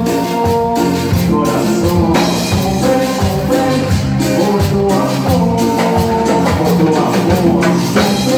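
A live Latin band playing with a lead singer: electric guitars, keyboard, drum kit and shaken percussion under the vocals, with a steady beat.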